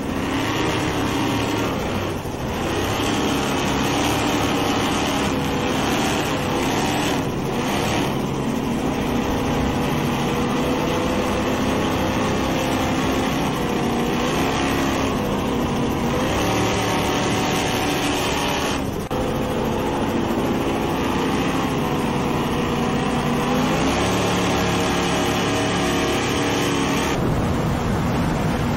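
Engines of two offshore racing powerboats running at high speed, their pitch rising and falling, over a steady rush of water and wind. The sound shifts abruptly a few times.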